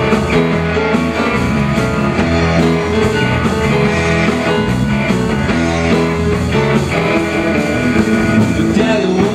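Live rock band playing an instrumental passage, guitar to the fore.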